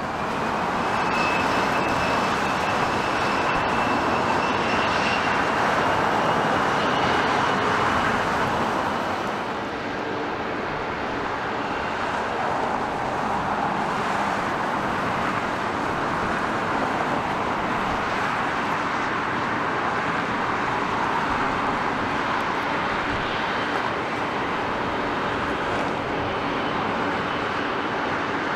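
Airbus A330-200's twin turbofan engines running at taxi power as the airliner taxis: a steady rushing hum, with a faint high whine that rises slightly in pitch over the first several seconds.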